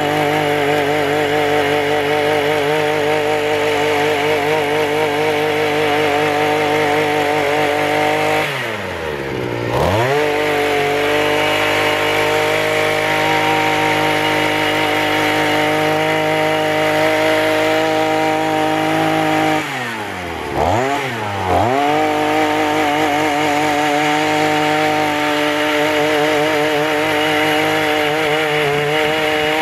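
Petrol brush cutter engine running at high revs, driving a tiller attachment whose tines churn through soil. Twice, about nine seconds in and again around twenty seconds in, the revs drop sharply and then climb back up.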